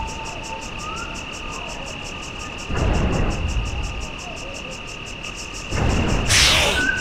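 Cartoon prehistoric sound effects: a steady insect chirring with a fast pulsing, and heavy low thuds of giant dinosaur footsteps about three seconds apart, at about 3 s and 6 s in. A short harsh, hissing burst comes near the end.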